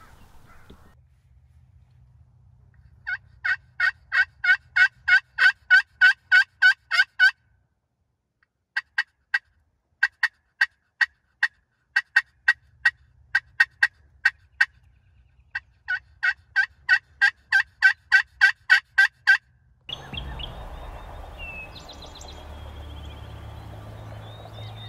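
Turkey call worked as hen yelps to draw a gobbler: three long runs of sharp, rapid, evenly spaced yelps, about four a second, with short pauses between runs. From about 20 s a steady outdoor background with a few faint bird chirps takes over.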